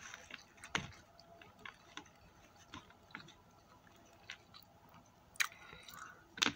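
Quiet eating sounds: soft, scattered clicks of chewing and of fingers picking at fried chicken in a plastic container, with a few sharper clicks about a second in and near the end.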